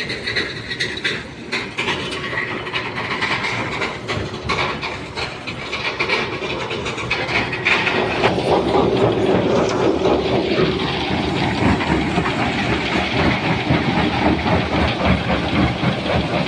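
Heavy stone-crushing machinery running, with a dense, continuous clatter of rocks knocking and rattling through it. It grows louder about eight seconds in.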